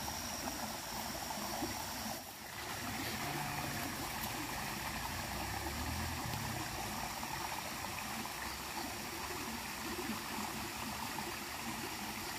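Steady rush and trickle of a small stream running over rocks into a slow river pool, dipping briefly about two seconds in.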